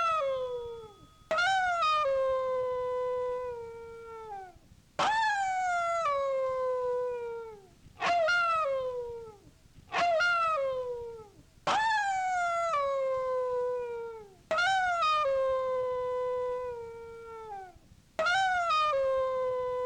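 Yorkshire Terrier howling: seven separate howls a few seconds apart. Each one starts sharply, slides up and then down to a steady pitch, holds, and fades with a drop in pitch at the end.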